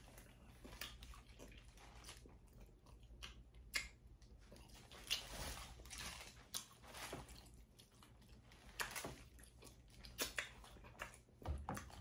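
A person chewing and smacking while eating a seafood boil: a run of irregular short clicks and mouth smacks, with a few sharper ones here and there.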